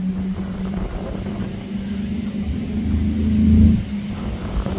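Off-road competition truck's engine running under load as it drives past. The note rises and grows louder about three seconds in, then drops back sharply.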